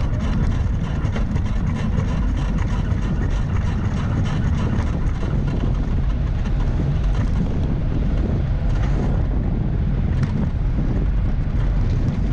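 A soapbox cart rolling fast down a paved street, with steady wind and road rumble on the onboard microphone. The cart's wheels and body rattle, with occasional knocks over bumps.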